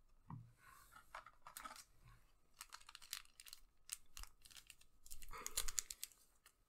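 Foil Digimon Card Game booster pack wrapper crinkling in the hands, then torn open across the top, with a run of sharp crackles and the loudest tearing near the end.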